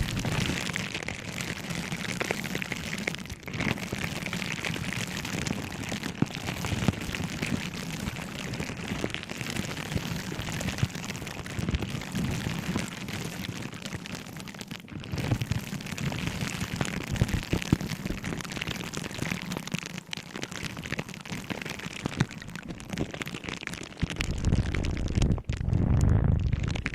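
Objects handled close to the microphone, a dense continuous crackling with many small clicks, with a low rumble near the end.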